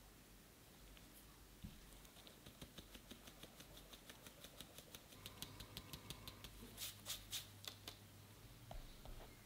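Fine mesh sieve with a plastic rim being shaken and tapped to sift matcha powder and flour into a glass bowl: faint, light, rhythmic taps about four or five a second, starting about two seconds in and loudest near the end.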